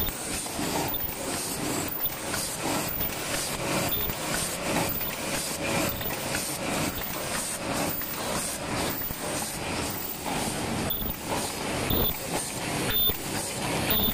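Automatic paper cup forming machine running together with its double-wall cup sleeve machine: a steady, rhythmic mechanical clatter of cycling molds and linkages, about two strokes a second.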